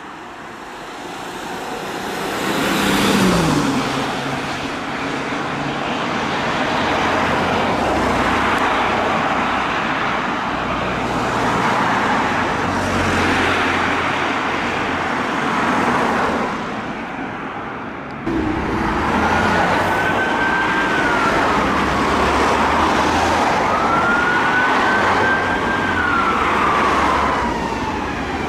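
Street traffic noise with a vehicle passing about three seconds in, then, after an abrupt change near two-thirds of the way through, an emergency vehicle's siren wailing, rising and falling slowly over the traffic.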